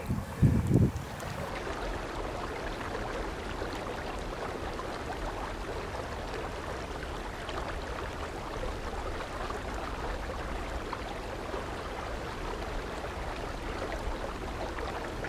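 River water sloshing and trickling around a mulloway held by the tail and moved back and forth in the water to revive it before release; a steady watery wash, with a short louder burst about half a second in.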